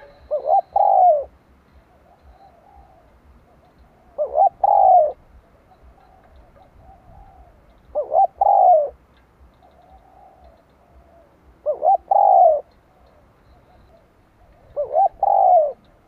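Spotted dove cooing close by, five phrases about four seconds apart. Each phrase is one or two short notes followed by a longer, drawn-out coo.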